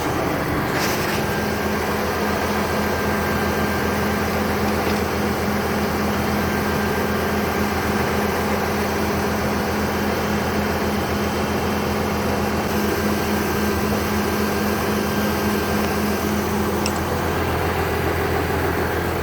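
Tractor engine running at a steady, even speed, with a brief click about a second in.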